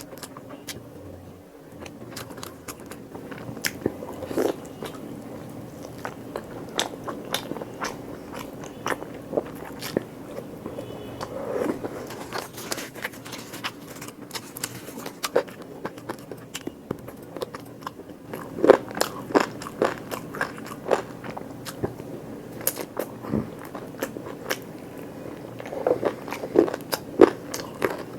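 Close-miked eating: biting and chewing with many small wet mouth clicks and crunches. The crunching gets louder about two-thirds of the way through and again near the end.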